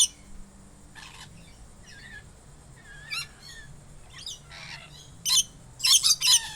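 Parrot calling in a series of short squawks and chirps, loud at the very start, softer in between, and a loud run of three calls near the end.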